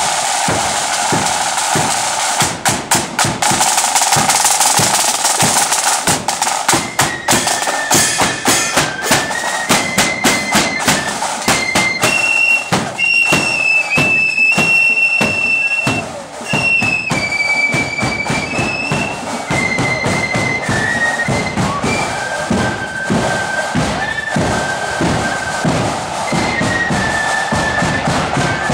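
Marching flute band playing: side drums beat a march rhythm with rolls, and about seven seconds in the flutes come in with a high melody over the drumming.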